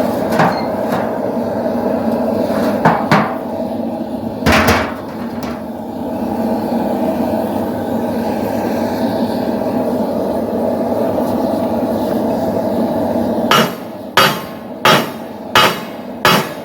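A forge running with a steady roar, broken by a few single metal clanks. Near the end the roar drops away and a blacksmith's hammer strikes steel on the anvil, about three blows every two seconds, forging a poleaxe spike.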